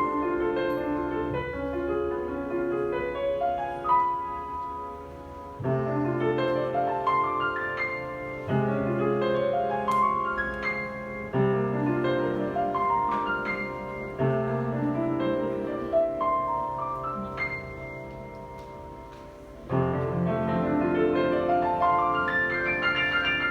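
Solo piano music, slow and classical in style, played in phrases of sustained notes.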